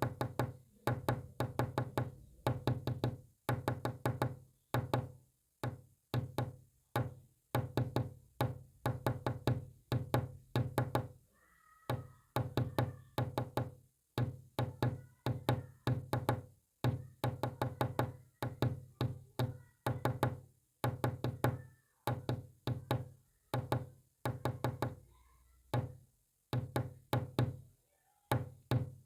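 Rapid knocking in irregular clusters of quick taps with short pauses between them, each knock with a short low ring, tapping out Morse code.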